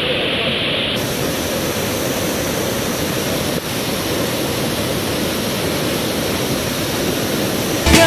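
Steady rush of water from a large waterfall: a dense, even noise of falling water.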